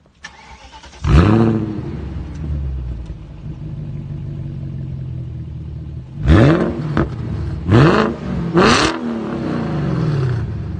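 BMW E39 540i's V8 through a straight-piped exhaust: a sharp rev about a second in that falls back to idle, then three quick throttle blips in a row between about six and nine seconds in before it settles to idle again.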